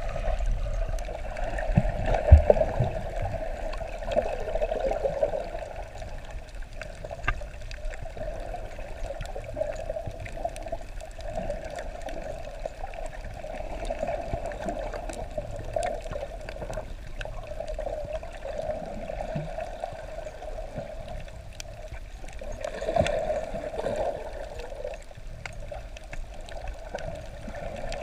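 Muffled underwater sound heard through a camera's waterproof housing: a steady dull rushing of water that swells and fades slowly, with scattered faint clicks.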